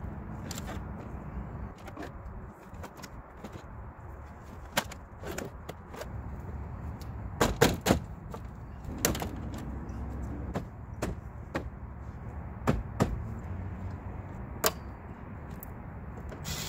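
Plastic dashboard trim being pressed and tapped into place by hand: a series of sharp clicks and knocks, with a quick group of three about halfway through, over a steady low hum.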